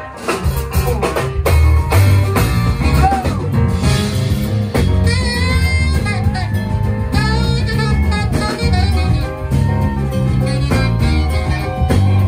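Live band playing: electric keyboard (Nord Electro 2), saxophone, drum kit and electric bass, with a steady beat.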